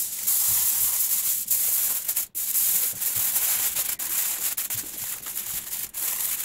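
Aluminium foil crinkling and rustling as it is folded and pressed shut around a round cheese, close to the microphone, with a brief break a little after two seconds.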